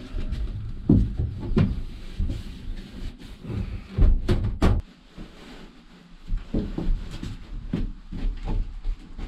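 Irregular knocks and thumps as van wall panelling and insulation are handled and pressed into place, with a quick cluster of sharp knocks about four seconds in.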